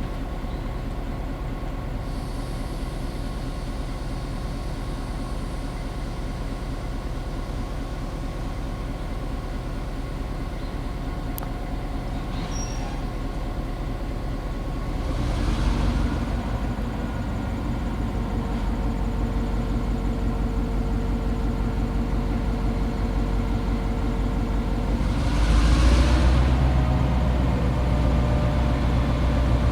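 EMD GP9 diesel-electric locomotive's 16-cylinder two-stroke 567 engine running during yard switching, a steady low rumble. Two short hissing bursts come about halfway through and again near the end, and after each the engine gets louder and stays louder.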